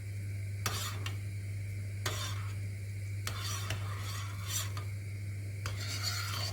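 Butter and grape molasses being stirred in a pot on the heat, the utensil scraping against the pot in irregular strokes about once a second, over a steady low hum.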